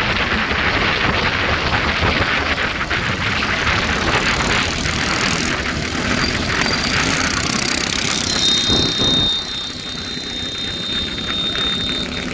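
Motorcycles running at speed, with heavy wind rush buffeting the microphone of the riding bike. A steady high-pitched tone joins about eight seconds in.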